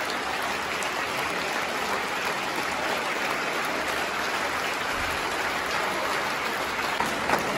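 Large theatre audience applauding steadily in dense, even clapping, with a couple of sharper claps close by near the end.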